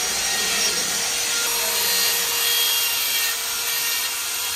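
Handheld electric die grinder (Dongcheng) running steadily against a stone idol, grinding and smoothing the carving. The grinding noise is continuous, with a faint steady motor whine beneath it.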